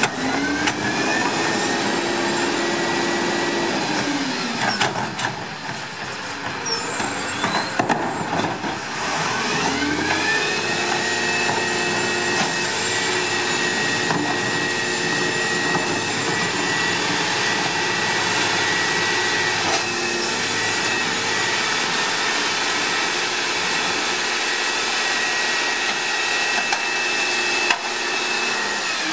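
Volvo WX42 rear-loader garbage truck's diesel engine revving up for its hydraulics, with hydraulic pump whine, as the rear cart tipper dumps a cart and the EZ Pack Goliath packer blade cycles. The pitch rises, holds for a few seconds and drops; a few knocks of carts and trash follow. About ten seconds in it revs up again and holds steady for the packing cycle, dropping back at the very end.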